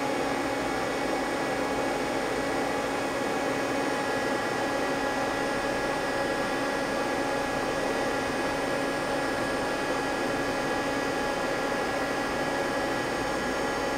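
Steady mechanical hum over a hiss, with several constant tones and no change in level, from machinery or ventilation running in a machine shop.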